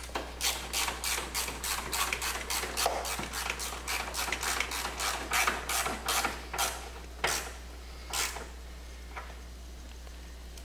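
Hand ratchet clicking in quick, even strokes, about four clicks a second, as a 13mm socket on an extension tightens a car battery's hold-down bolt. The clicking stops about two-thirds of the way through, followed by a couple of single clicks.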